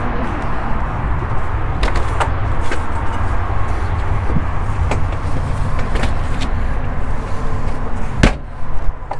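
Latches and panels of a motorhome's outside storage compartment doors clicking and knocking several times as they are opened and handled, over a steady low rumble.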